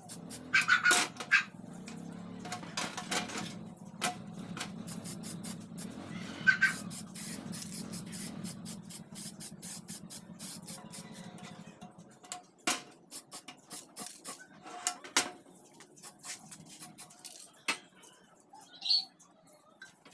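Aerosol spray-paint can in use: many quick sharp clicks from the can being handled and shaken, its mixing ball rattling, with short hisses of spray.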